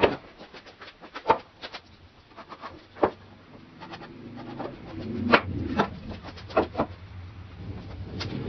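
Pine 2x4 boards knocking and clunking against each other and the plywood benchtop as they are laid and shifted into place: several sharp, irregular knocks, the loudest at the very start and about five seconds in.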